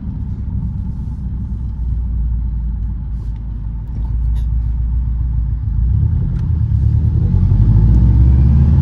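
Big-turbo Subaru WRX's flat-four engine and road noise heard from inside the cabin while driving: a low, steady rumble that grows louder over the last few seconds.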